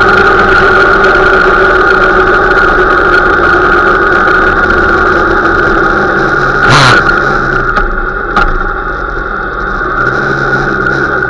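Motorcycle engine running under way, heard from the rider's seat with wind noise, with a brief rush of noise about seven seconds in. The engine drops toward idle as the bike slows, then picks up again near the end.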